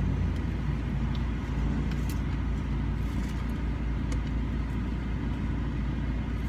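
Steady low hum of an idling car engine with the air conditioning running, heard inside the cabin, with a few faint clicks.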